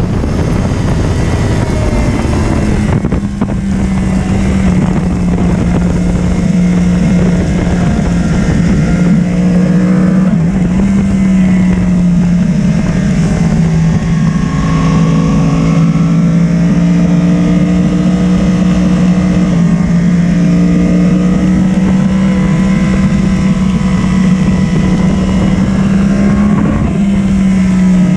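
Yamaha sport motorcycle's engine running hard at high, fairly steady revs, heard from on board, with wind rushing over the microphone. The engine's pitch steps down and climbs back up a few times as the rider shifts and eases off for corners.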